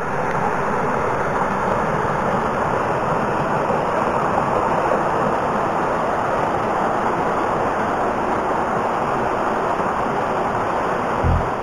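Steady, unbroken rush of creek water flowing over rocks.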